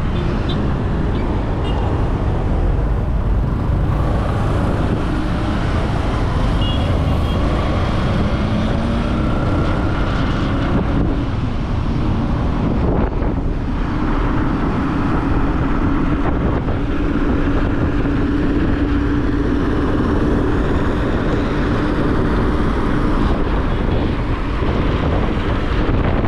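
Wind buffeting the microphone on a moving motorcycle, with the motorcycle's engine running underneath and road traffic around it. The engine note climbs a little about a third of the way in and then holds steady.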